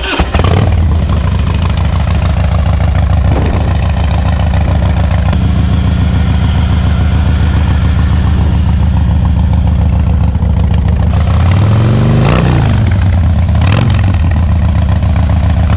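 2005 Harley-Davidson Dyna Super Glide's freshly rebuilt Twin Cam 88 V-twin started with the enricher pulled, catching at once and idling steadily. It is revved up and back down about twelve seconds in, then blipped once more shortly after.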